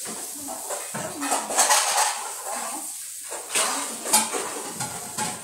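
Dishes and cutlery being handled, clinking and clattering irregularly, with the loudest clatters about a second and a half in and about four seconds in.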